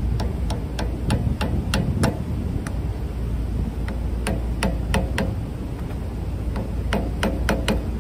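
Light taps of a claw hammer on a metal two-groove V-belt pulley, knocking it down onto the shaft of a replacement three-phase induction motor. The taps come in three quick runs of five or six, each with a short metallic ring.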